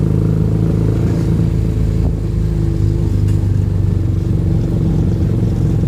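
Motorcycle engine of a home-built mini jeep running steadily at an even speed.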